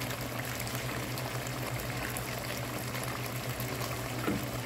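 Beef rezala sauce of milk and yoghurt simmering in a non-stick wok, a steady bubbling with faint small pops, over a steady low hum.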